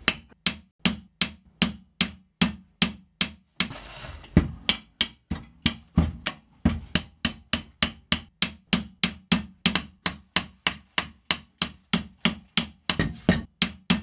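Steel hammer striking a thin metal strip held in a bench vise, bending it over the vise jaw: a steady run of sharp blows, about two and a half a second.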